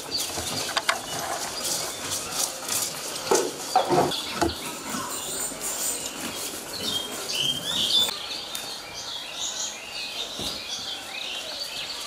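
A horse munching dry hay and straw from a trough: a dense, irregular run of crunching and rustling chews. Birds chirp in the later seconds.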